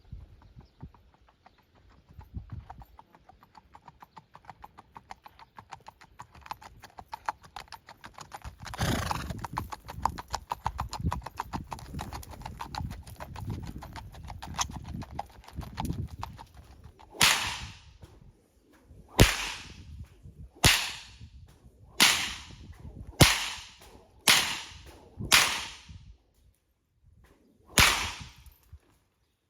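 Rapid hoofbeats of gaited show horses moving along the rail. About halfway through they give way to eight loud, sharp swishing cracks roughly a second apart.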